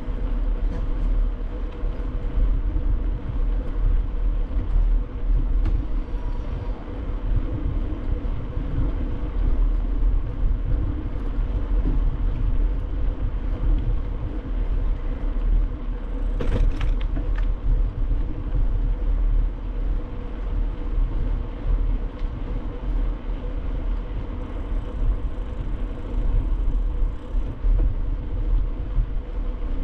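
A bicycle rolling along an asphalt street, heard from a camera on the bike: a steady low rumble of tyres on the road and moving air, with a faint steady hum and a brief clatter a little past halfway.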